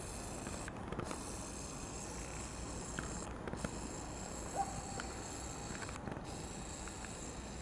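Quiet outdoor ambience: a steady high-pitched chirring that breaks off briefly every two to three seconds, with a few faint clicks.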